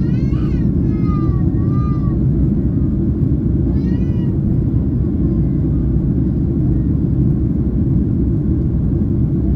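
Steady low cabin rumble of a Boeing 767-300ER in flight, engine and airflow noise heard from a seat inside the cabin. Short, high-pitched wailing cries rise and fall over it twice in the first two seconds and once more about four seconds in.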